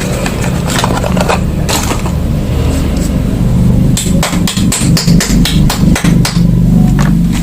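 Soap packaging being handled and opened: a run of sharp taps and crackles that grows quicker and denser about four seconds in, over a steady low hum.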